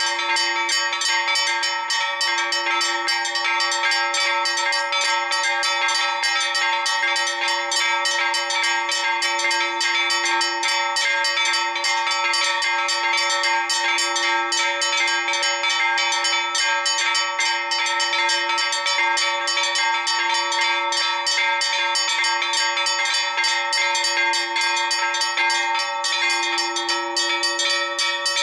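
Four bronze church bells of a Maltese parish church being rung together in a festive peal, the call before a feast-day High Mass. A rapid, unbroken stream of strokes, the bells' tones ringing on over one another.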